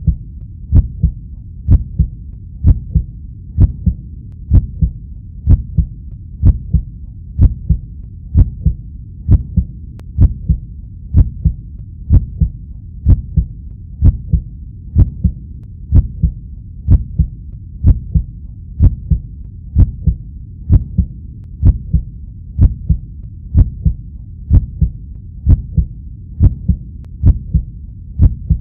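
Heartbeat sound effect: a steady, slow pulse of low double thumps, about one beat a second.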